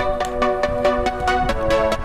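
Electronic background music with a fast, steady beat and a melody of short notes.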